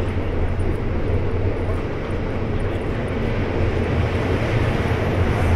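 Steady low rumble of city street ambience, an even background roar of traffic and trains with no single event standing out.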